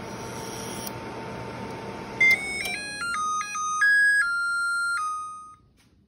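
Opened LG LMC0975ST inverter microwave running with a steady hiss and faint hum while not heating: the weird hiss noise it is being troubleshot for. About two seconds in the running noise stops and the oven's electronic beeper plays a short tune of stepped beeps lasting about three seconds.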